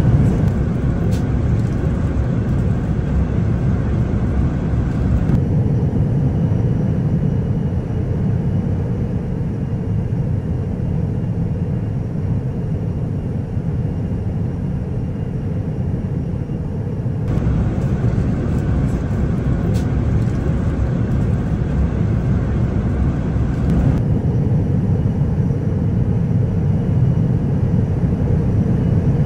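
Jet airliner cabin noise in flight: a steady, even rumble of engines and airflow heard from inside the passenger cabin. Its tone changes abruptly a few times.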